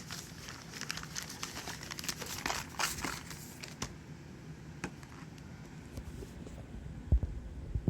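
Packaging being handled and unwrapped: a run of crinkling, rustling clicks over the first few seconds that thins out, then two dull thumps near the end.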